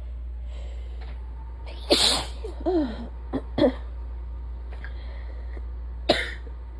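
A person sneezing in an allergy attack. A loud sneeze comes about two seconds in, followed by a few shorter bursts and voiced gasps, then another sharp sneeze near the end, with soft breaths drawn in before each.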